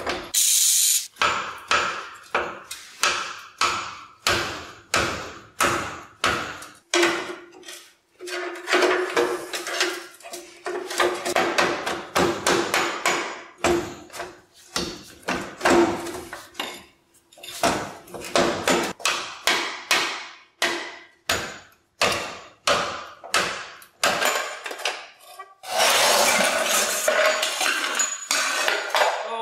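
Repeated hammer blows on steel, about two a second with a short metallic ring, striking a long red-handled tool against the lower ball joint and spindle of a 1956 Chevrolet's front suspension to knock it loose. Near the end the blows give way to a few seconds of steadier clatter.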